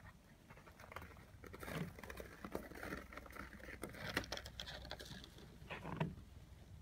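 Footsteps crunching on a thin layer of snow: an irregular run of soft crunches, with a few louder steps about 2, 4 and 6 seconds in.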